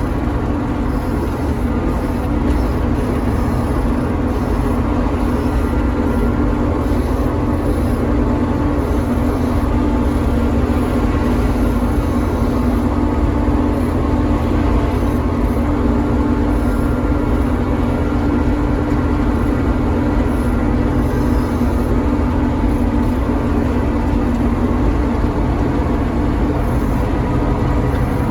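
Corn-harvesting machinery running steadily under load: a constant engine hum over the noise of the working machine, with no change in pace.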